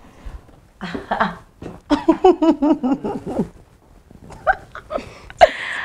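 Women's voices squealing and laughing in greeting, without clear words. There are two stretches of it, one in the first half and a shorter one near the end.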